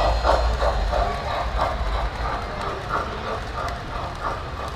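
Electric model steam train running on its track: a steady rhythmic chuffing, about three puffs a second, over a low rumble of wheels and motor, slowly fading as the locomotive draws away.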